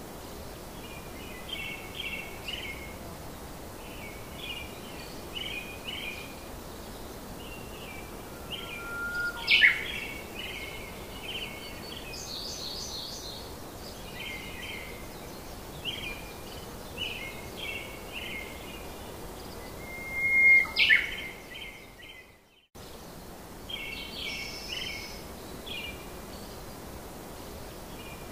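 Birds chirping over a steady hiss: short clusters of high chirps repeat every second or so, with two louder, sharper calls about ten seconds in and again just past twenty seconds. The sound cuts out completely for a moment soon after the second.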